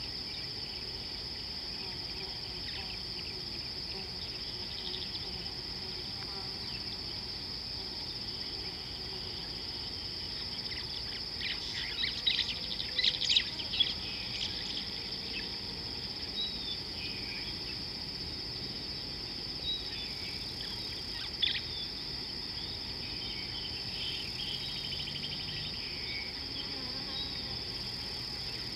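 Steady high-pitched drone of an insect chorus. A burst of short, sharp bird calls rises over it partway through, with one more call about two-thirds of the way in.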